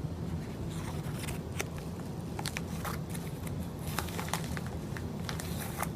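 Package contents being handled: crinkly rustling with scattered small sharp clicks, over a steady low hum.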